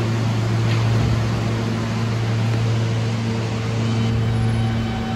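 New York City subway train at a station platform: a steady low hum over a rumbling noise, with thin high tones coming in about four seconds in as train noise builds.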